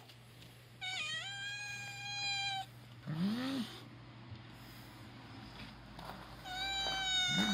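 Domestic cat meowing: two long, drawn-out meows a few seconds apart, each followed by a short, lower call.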